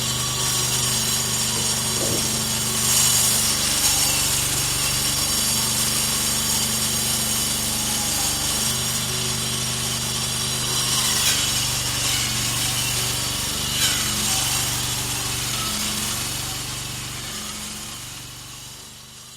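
Stone-polishing machine running steadily: a motor hum under a hissing grind of the abrasive on stone, with a few brief louder scrapes. It fades out near the end.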